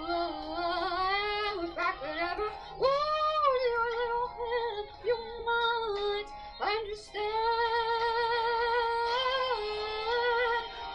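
A young woman singing solo into a handheld microphone, holding long notes with a wavering vibrato, broken by short pauses between phrases.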